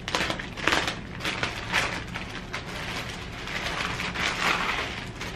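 Clear plastic bag crinkling and rustling in irregular bursts as a pair of slides is pulled out of it.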